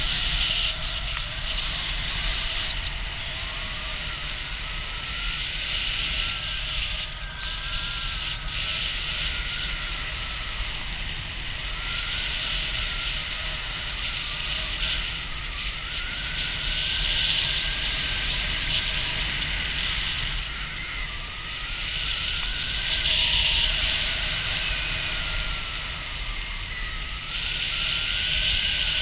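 Airflow rushing steadily over the camera microphone in flight, with a faint high whistle that slowly wavers up and down in pitch.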